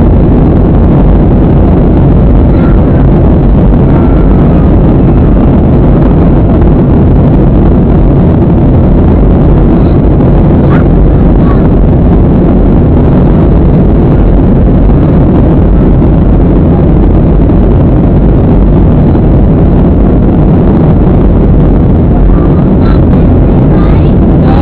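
Steady, loud cabin noise of a Boeing 737 airliner in flight, heard from a window seat: a constant low rumble and rush of jet engines and airflow that does not change.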